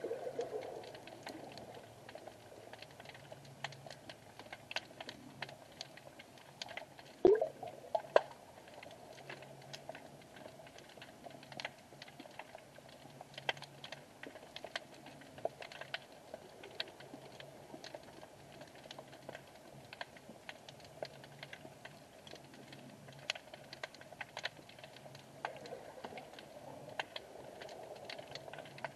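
Underwater ambience picked up through an action camera's waterproof housing: a faint, irregular crackle of sharp clicks, with two louder knocks about seven and eight seconds in.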